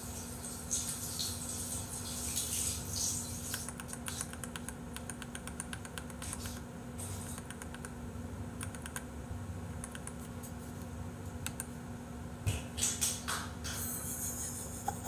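Irregular light clicking of a computer keyboard being typed on, over a faint steady hum. A couple of brief, louder rustling patches come about three seconds in and near the end.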